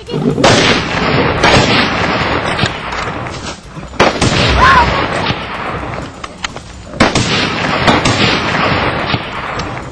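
Gunshots: three loud sudden blasts about three seconds apart, each trailing off over a couple of seconds, with shouting.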